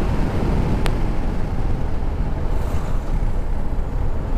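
Steady wind rush over the microphone of a motorcycle riding at road speed, with a low rumble underneath. A single light click about a second in.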